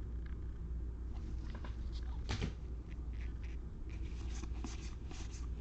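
Baseball trading cards being handled and flicked through one by one: a run of soft clicks and rustles, the sharpest about two seconds in and a quicker cluster near the end, over a low steady hum.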